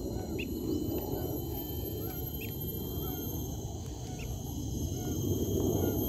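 Birds chirping in short, repeated arched notes about twice a second, with a few higher rising notes, over a steady high-pitched insect drone. A low rumble underneath grows a little louder near the end.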